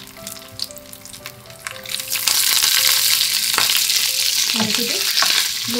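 Curry leaves dropped into hot coconut oil with mustard seeds, dals, cashews and chillies. The light crackle of the frying spices turns, about two seconds in, into a loud steady sizzle as the wet leaves hit the oil.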